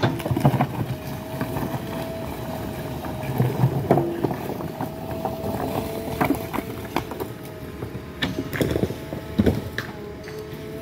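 JCB 3DX backhoe loader's diesel engine running steadily under hydraulic load, with a steady whine. The bucket knocks and scrapes against soil and stones several times, loudest about half a second in, around four seconds, and near the end.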